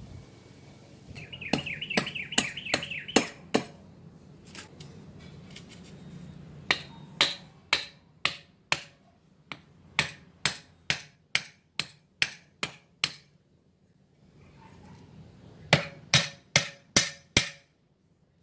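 Sharp knocks of a hand tool striking wooden stakes, coming in runs of about two blows a second. A bird chirps in a quick series near the start.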